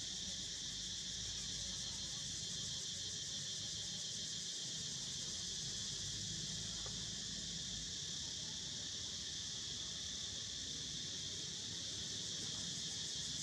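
A steady, high-pitched chorus of insects, with no breaks.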